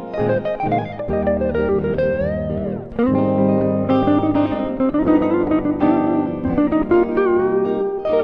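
Music: guitar playing, with a held melody line that wavers in pitch over it.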